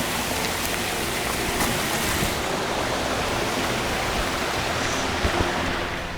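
Steady rush of a mountain stream in a valley, with a few light ticks in the first two seconds.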